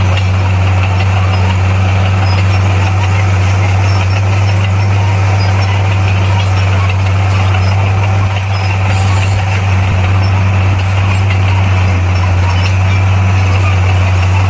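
Bulldozer's diesel engine running steadily with a deep, even hum, dipping slightly about eight seconds in.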